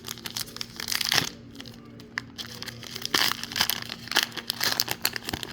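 A baseball card pack wrapper crinkling and tearing in irregular bursts as the pack is opened, over a faint steady hum.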